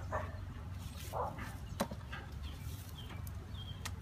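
A dog barking twice, about a second apart.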